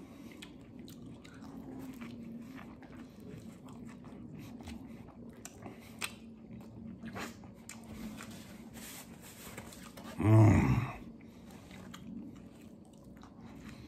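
A man chewing a mouthful of soft sub sandwich close to the microphone, with wet mouth sounds and small clicks, and a sharp lip smack about six seconds in as he licks his fingers. About ten seconds in comes a brief loud sound from his voice, a short hum or grunt.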